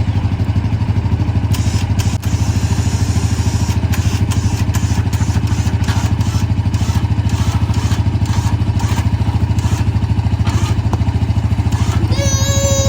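A vehicle engine running steadily with a fast, even pulse, with a series of regular clicks, about two a second, through most of it. A falling whine sounds near the end.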